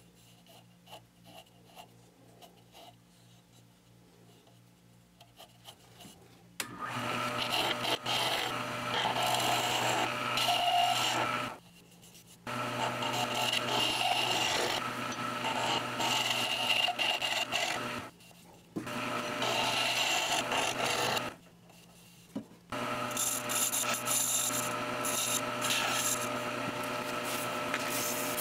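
Mini wood lathe turning a wooden handle. Its motor hums quietly at first; from about six seconds in, a skew chisel cuts the spinning wood in long scraping passes, broken by three short pauses. Near the end, sandpaper is held against the turning handle.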